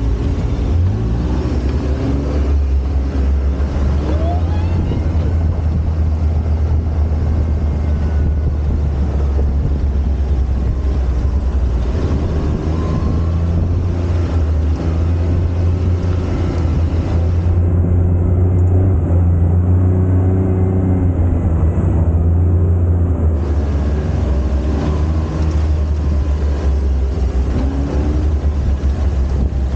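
UTV engine running under way, a steady low drone whose pitch shifts a little with the throttle.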